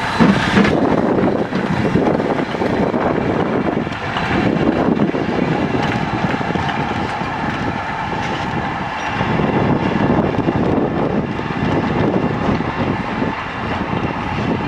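Steam-hauled passenger train running past, a steady loud rumble of the train on the rails.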